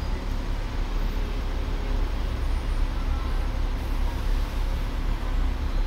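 Hong Kong double-decker tram running along the street, heard from on board: a steady low rumble with street traffic mixed in.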